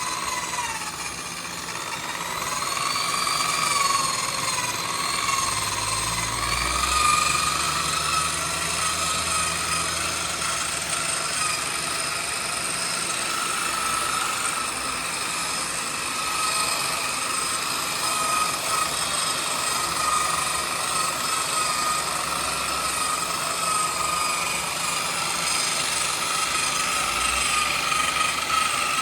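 Electric buffer-polisher running steadily with a high motor whine, a foam pad buffing a plastic headlight lens; the pitch wavers a little in the first few seconds, and a low hum joins for a few seconds near the middle.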